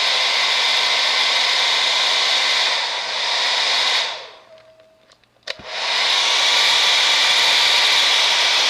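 Hair dryer blowing steadily, heating a sticker to soften its adhesive. About four seconds in it winds down to near silence, a click follows, and it runs back up to full.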